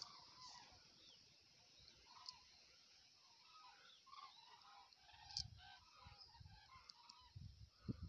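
Faint calls of a large migrating flock passing high overhead in lines: many short calls overlapping throughout. A few low rumbles from wind or handling on the microphone come near the end.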